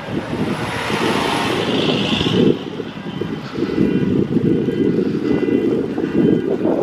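Wind buffeting the microphone in a snowstorm, a rough, uneven low rumble, with a hiss higher up that swells and fades over the first couple of seconds.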